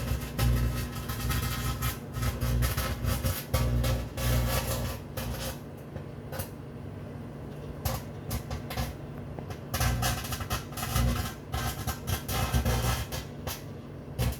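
Microwave oven running with a steady electrical hum, over irregular crackling and buzzing from plasma arcing inside the cavity. The crackling thins out for a few seconds in the middle, then picks up again.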